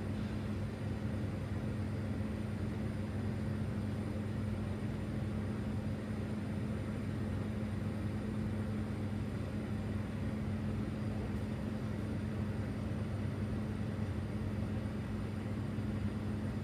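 Natural-gas-and-oxygen glassblowing bench torch burning with a steady rushing sound, over a steady low hum.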